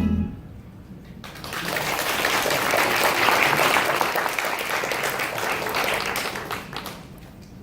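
Applause: many hands clapping, starting abruptly about a second in, swelling and then dying away near the end.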